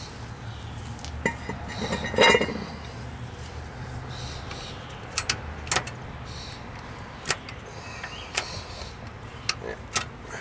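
Scattered sharp metal clicks and clinks from hand work on the rear parking brake of a 2002 Chevy TrailBlazer: the rotor is handled and the shoe adjuster is worked with a screwdriver, because the shoes are still too loose. A brief scrape comes about two seconds in, and about six separate clicks fall in the second half over a low steady hum.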